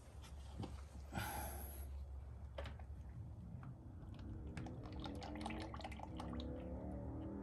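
Motor oil pouring from a plastic jug into a funnel in the engine's oil filler, with faint drips and clicks at first and then a steady gurgle setting in about four seconds in.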